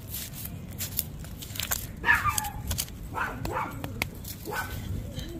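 A dog barks a few short times from about two seconds in, over the scratching and scraping of a hand tool digging in garden soil around a beetroot.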